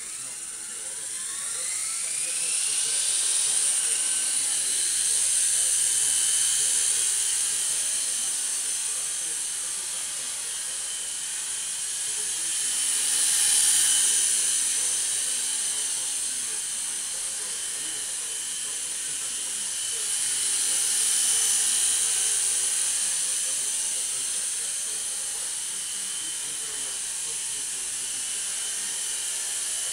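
Micro electric RC helicopter, a Walkera–Nine Eagles hybrid, with its motors and rotors whining at a high pitch. It spools up with a rising whine over the first few seconds, then hovers and flies around, loudest about fourteen seconds in as it passes close by.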